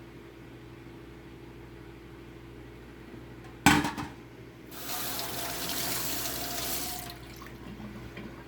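A sharp knock, then a kitchen sink sprayer head running water for about two seconds before shutting off: a test of the spray after the nozzle has been cleaned of hard-water calcium buildup.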